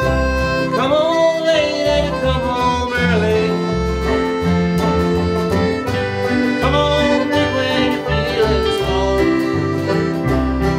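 Folk-country band music with accordion and guitar over a steady bass rhythm, and a sliding melody line, likely fiddle, coming in twice.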